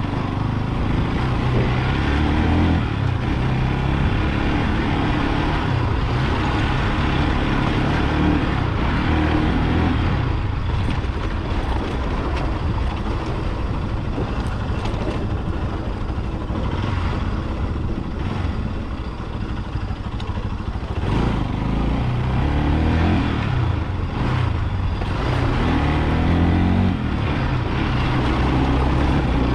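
Motorcycle engine running under way, its pitch rising and falling with throttle and gear changes, over a steady rush of wind and road noise.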